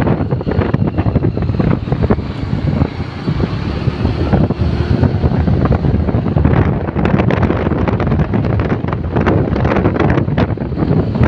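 Loud wind buffeting a phone microphone on a moving motorbike, crackling and gusty, over the low rumble of the ride.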